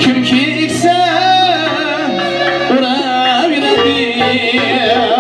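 Live Uzbek folk-pop band music: doira frame drum, ghijak spike fiddle and keyboard, with a male singer's long wavering notes.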